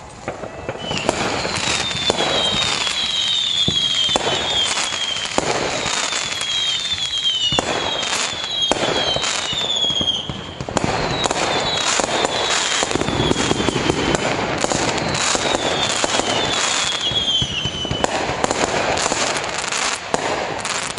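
Fireworks display going off in dense volleys, many bangs overlapping with continuous crackling. It swells about a second in, with runs of high, short, falling whistles through it.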